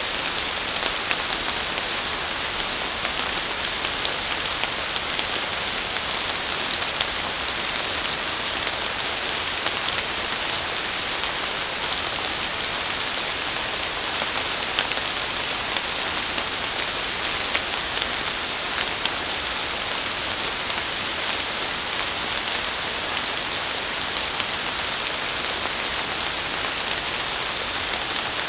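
Steady rain falling in a forest: an even hiss of rain with scattered sharp ticks of individual drops.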